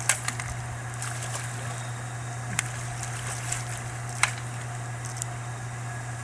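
Steady wash of moving river water around a kayak, with a few sharp clicks and knocks, one near the start, then about two and a half and four seconds in.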